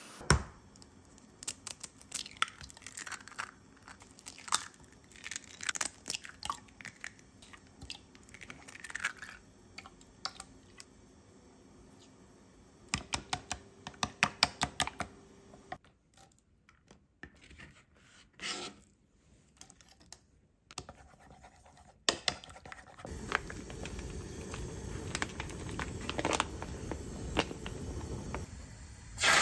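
Kitchen prep handling sounds: scattered clicks, taps and scrapes of utensils and containers. About two-thirds through, a steady sizzle of food frying in a pan begins.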